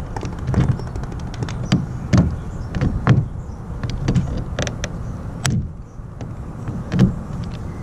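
Long-handled lever pop-rivet tool being worked to set a rivet in a plastic kayak hull: a series of sharp metallic clicks and clacks as the handles are squeezed, the sharpest about five and a half seconds in.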